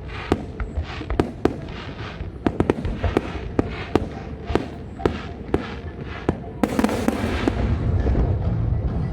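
Fireworks display: an irregular string of sharp bangs and cracks, several a second, then a dense crackling burst a little past halfway that leaves a steady rushing hiss.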